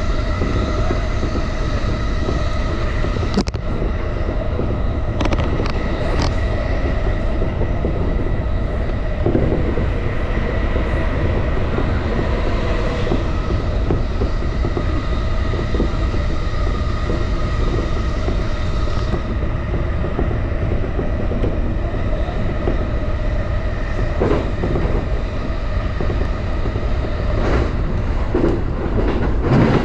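Electric commuter train of the JR Yokohama Line running on the line: a steady rumble of wheels on rail with a steady motor whine over it, and a few sharp clicks a few seconds in and again near the end.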